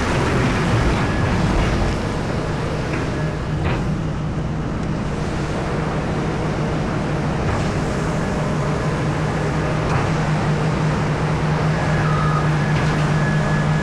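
Heavy diesel mining machinery running steadily: a deep engine drone that grows stronger in the last few seconds, with a faint high whine near the end.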